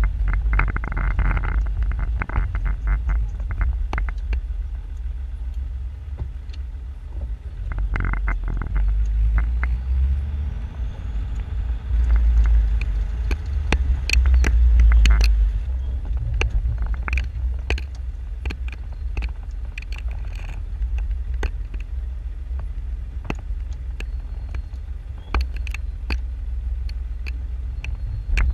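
Old Range Rover driving slowly over a rough dirt track, heard from a camera on its bonnet: a steady low engine and drivetrain rumble, with many sharp clicks and knocks as the vehicle jolts over the ground. The rumble swells for a few seconds about halfway through.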